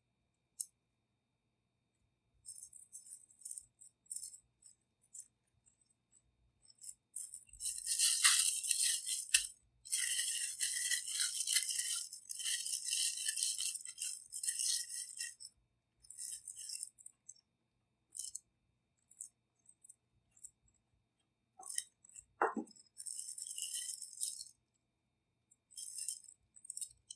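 Plastic piping bag crinkling and rustling in bursts as royal icing is scooped into it and worked down, longest and loudest a third of the way through, with a short squeak about two-thirds through.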